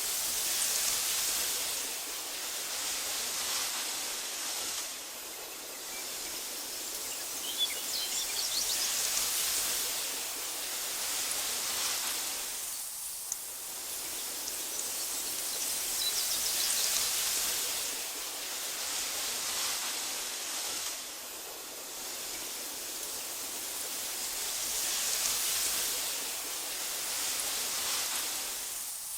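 Wind blowing through tall meadow grass. It swells and eases in slow gusts about every eight seconds.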